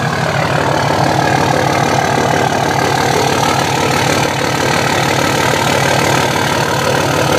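Cummins 5.9-litre inline-six turbo diesel of a 2004 Dodge Ram 3500 idling steadily, heard close to its exhaust tip.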